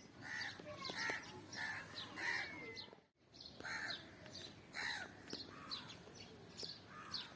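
Crows cawing repeatedly, with smaller birds chirping higher up; the sound cuts out briefly about three seconds in.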